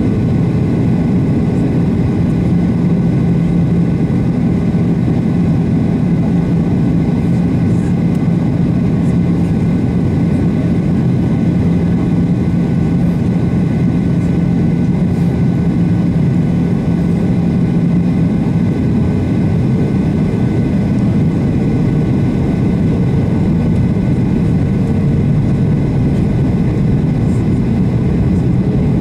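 Steady roar of airflow and CFM56 jet engines inside the cabin of a Boeing 737-800 on descent. A low hum in the noise drops out about two-thirds of the way through and a slightly higher hum takes its place, a change in engine setting.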